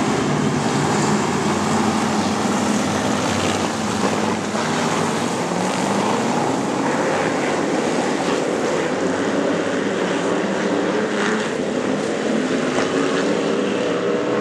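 A pack of supermodified race cars' V8 engines running hard on a dirt oval, a dense, continuous engine sound with the pitch climbing gently through the second half.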